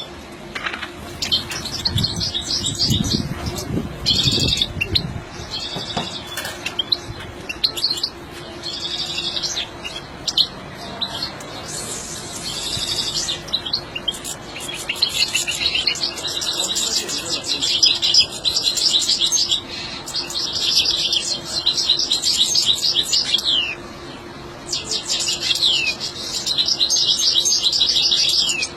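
European goldfinch singing in long runs of rapid twittering phrases, with a few downward-sliding notes in the later phrases.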